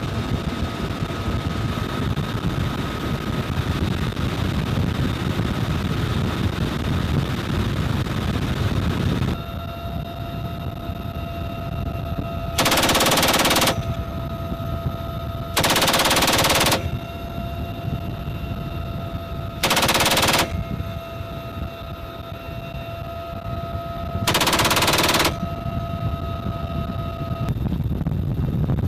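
Helicopter turbine and rotor noise with steady whine tones, then a door-mounted machine gun on the helicopter fires four rapid bursts of about a second each, a few seconds apart. The bursts are the loudest sound, with the helicopter's whine running on between them.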